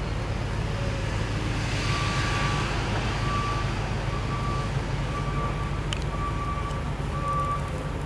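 Vehicle reversing alarm beeping in a steady single tone about once a second, starting about two seconds in, over a steady low rumble.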